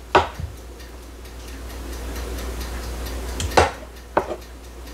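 A spoon clinking and scraping against a saucepan as peaches and juice are scooped out, with about three sharp clinks: one just after the start and two close together near the end.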